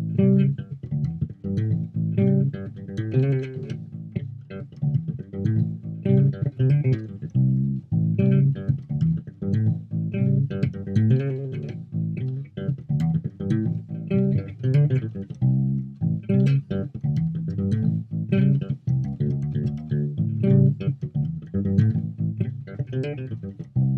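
Home-built P/J-style electric bass with flatwound strings, played through a Peavey Basic 112 combo amp and picked up by a laptop microphone. It plays a continuous, busy bass line of quickly plucked low notes.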